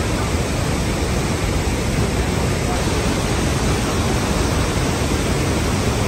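Murchison Falls on the Nile: the steady roar of white water rushing over the rapids and plunging down the falls. It is a dense, even rush, heaviest in the low rumble.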